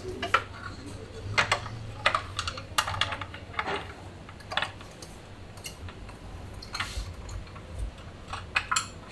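Irregular sharp metallic clicks and clinks, a few each second, some ringing briefly: hand tools and metal parts being handled during work on the motorcycle.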